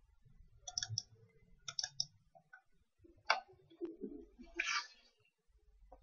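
Several scattered, sharp clicks from a computer mouse and its scroll wheel as the document is scrolled, with a short hiss about four and a half seconds in.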